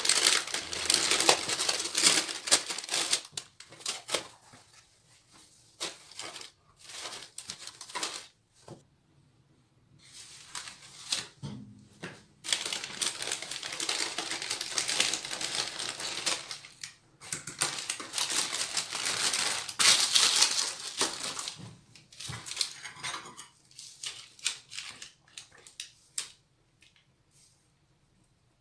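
Baking parchment paper being folded and crinkled by hand, crackling and rustling in several long bursts with quieter pauses between, dying away near the end.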